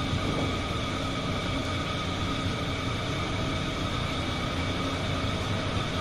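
Washing machine running with a steady hum and hiss that does not change.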